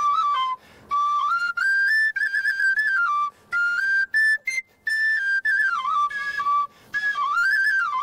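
A slow folk melody played solo on an end-blown wooden pipe: a single clear, high line moving up and down in steps, phrases separated by short breath pauses.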